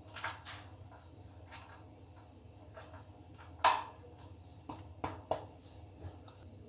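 Flat metal spatula pressing a sticky date-and-nut mixture into an aluminium tin, with scattered scrapes and clicks of metal on the tin. One sharp knock about three and a half seconds in is the loudest.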